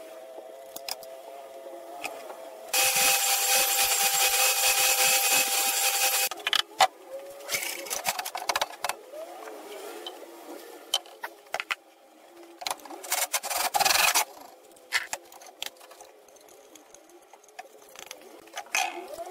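Table saw running and cutting a wooden disc on a circle-cutting jig. One steady loud stretch lasts about three and a half seconds, followed by two shorter bursts of cutting noise, with knocks and clatter from handling the wood in between.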